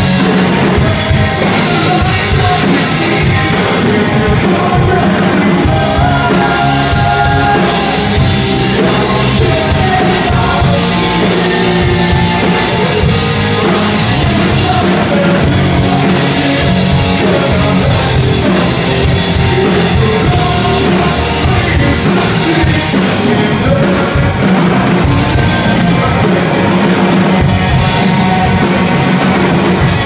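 Live rock band playing loudly: distorted electric guitar, bass guitar and a drum kit, with a singer singing into a microphone over them.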